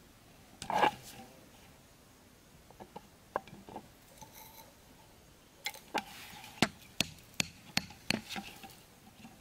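Hatchet knocking a bamboo stake into sandy ground: about six sharp knocks, two to three a second, in the second half. A short rattle about a second in.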